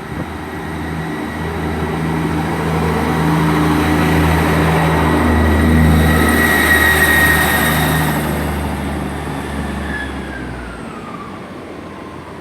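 Class 158 diesel multiple unit accelerating away from the platform on its underfloor diesel engines. The engine sound builds to its loudest about six seconds in, then fades as the train draws away, with a high whine that falls in pitch near the end.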